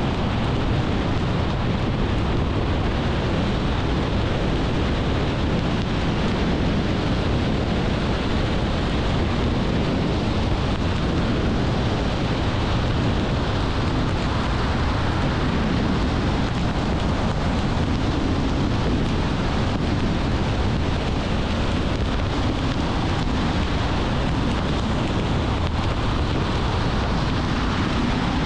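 Steady road noise of a car driving at speed: an even rushing of tyres, engine and wind that holds unchanged throughout.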